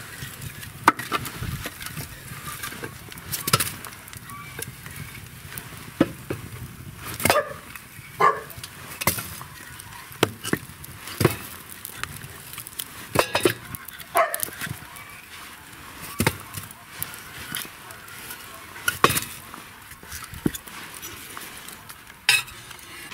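Split firewood logs being loaded into a wood-burning stove's firebox: irregular wooden knocks and clunks, one every second or two.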